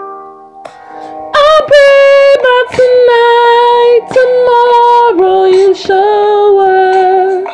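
Music: a woman singing a slow melody in long held notes with a slight waver, stepping down to a lower note about five seconds in, over soft accompaniment.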